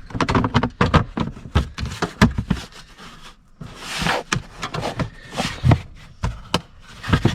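Hard parts being handled and fitted by hand: a run of short clicks and knocks, with a longer scraping rustle about four seconds in.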